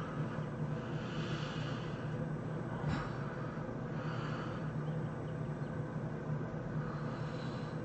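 A sleeping person snoring and breathing heavily, a breath about every three seconds, over a steady low hum. A brief click about three seconds in.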